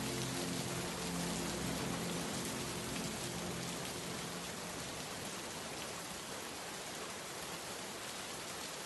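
Steady rain falling on a hard surface, an even hiss all the way through. Under it, a few low steady tones fade out about three to four seconds in.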